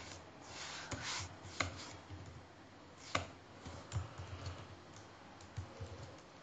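A handful of separate keystrokes on a computer keyboard, slow and irregularly spaced, as a line of code is typed.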